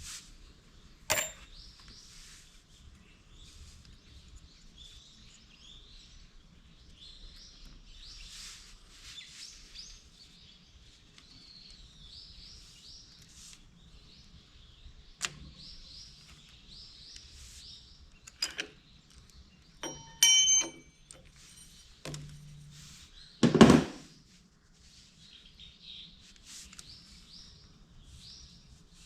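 Small birds chirping in the background, with scattered knocks and clinks of metal tools and engine parts being handled: a sharp clink about a second in, a short ringing metallic clatter about twenty seconds in, and a heavier thunk, the loudest sound, a few seconds later.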